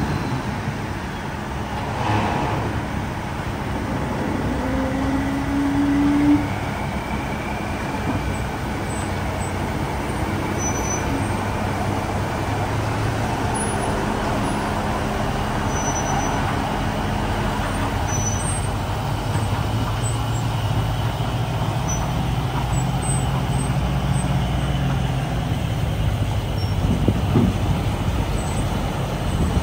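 Grove TM1500 truck crane's diesel engine running as the heavy multi-axle crane drives slowly away.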